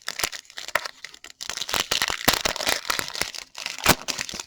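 Crinkling and tearing of a trading-card pack wrapper being ripped open, with rapid crackles and one sharp crack near the end.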